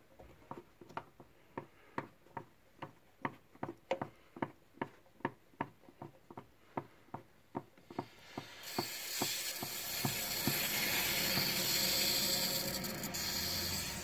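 Filling-tap knob under a Baxi Main 5 gas boiler clicking about three times a second as it is turned by hand. About eight seconds in, a loud steady hiss of water rushing through the opened tap takes over as the system is topped up after an E10 low-pressure error.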